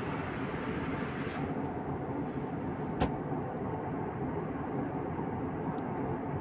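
Steady cabin noise of an airliner in flight, the even rush of engines and airflow heard from a window seat, with a single sharp click about three seconds in.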